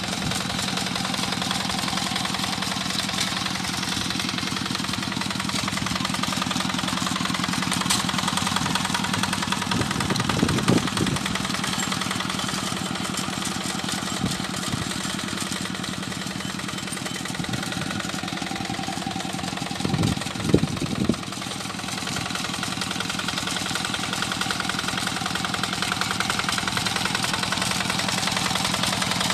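Tractor engine running steadily while plowing a rice paddy, with brief louder surges about ten and twenty seconds in.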